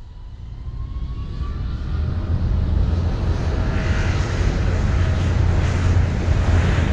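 A steady low rumble that swells up from silence over the first two seconds, with a faint rising whine near the start, like an aircraft engine.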